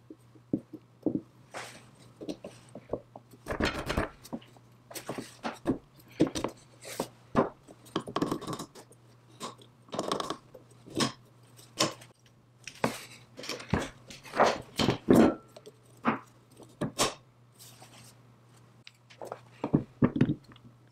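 Cast-iron and steel parts of an antique belt lacer being handled and fitted together: irregular clinks, knocks and light scrapes of metal, some of them quite sharp. A faint steady low hum sits underneath.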